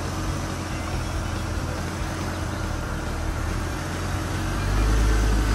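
Jeep Cherokee XJ engine running low and steady as the Jeep creeps forward on the brake over rough dirt, the rumble growing louder near the end as it comes closer.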